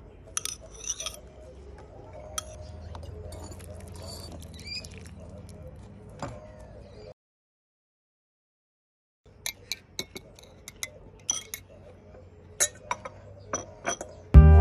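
Metal spoon clicking and clinking against dishes, in short separate taps over a low background hum. The sound drops out entirely for about two seconds in the middle, and music starts just before the end.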